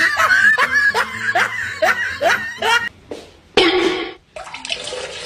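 A string of about seven short, rising vocal sounds, evenly spaced. After a pause there is a sudden gush, then the steady rush of a toilet flushing near the end.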